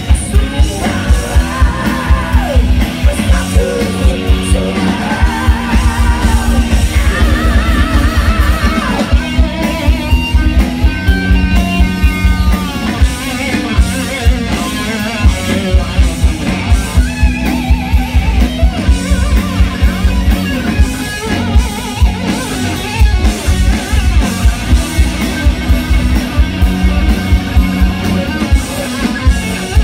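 Live rock band playing through a concert PA: electric guitar leading over a drum kit with a steady, driving beat.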